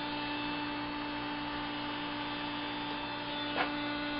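Steady electrical hum made of several held tones, with one short click about three and a half seconds in.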